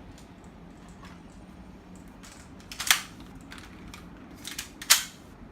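Spring airsoft pistol being fired twice, two sharp snaps about two seconds apart, with lighter mechanical clicks of handling and cocking between them.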